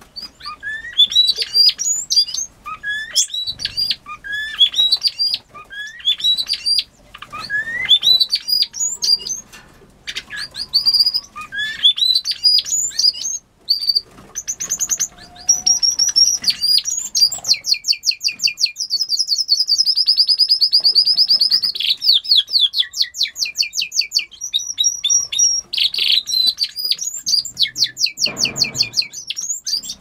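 Small cage birds singing: short rising chirps in repeated phrases, then about halfway through a long song of rapid trills and held whistles that runs on for more than ten seconds.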